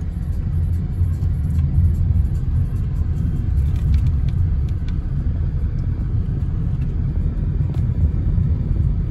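Steady low rumble of a car's engine and tyres heard from inside the cabin as it drives along a rough road, with a few faint clicks.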